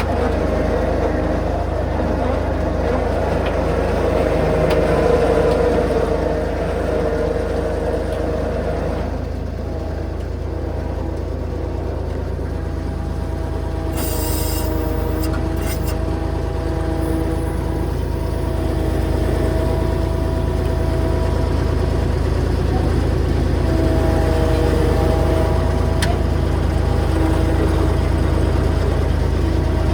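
A motor vehicle being driven, with a steady low engine and road drone throughout and a brief sharp hiss about halfway through.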